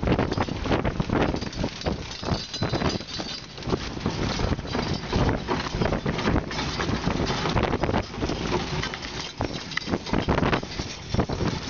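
Wind buffeting the microphone over a rough, continuous clatter of irregular knocks and bumps on a working fishing boat's deck.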